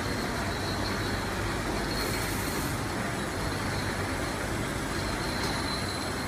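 Automatic six-head sauce filling and capping machine running: a steady machine noise with a low hum, and a short hiss about two seconds in.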